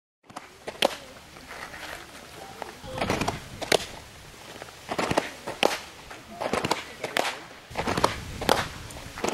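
Softball popping into a catcher's mitt, a sharp smack every second or two, as pitches are caught in a framing drill. Softer scuffing and faint voices come between the catches.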